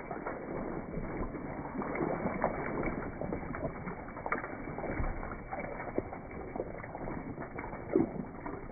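Knobbly Michelin Wild Rock R2 mountain bike tyres rolling through wet mud and gravel: a steady rumbling rush with scattered clicks and knocks from stones and the bike, the loudest knock about eight seconds in.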